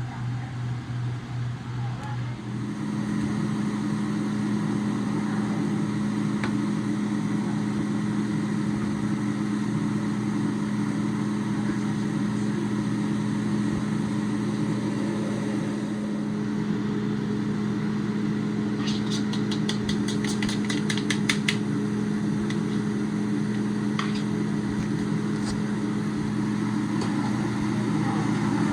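A steady motor hum that steps up to a stronger, higher hum about two seconds in, with a quick run of sharp clicks about two-thirds of the way through.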